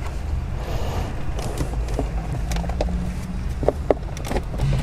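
Plastic centre-console trim creaking, with a few sharp clicks near the end, as a plastic panel removal tool pries at its retaining clips. A steady low hum runs underneath.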